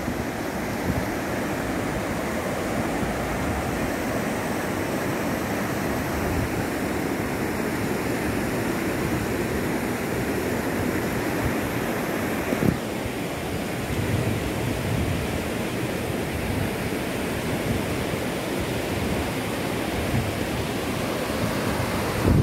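Steady rushing roar of a fast river in flood pouring over rapids, with wind buffeting the microphone. One brief knock about halfway through.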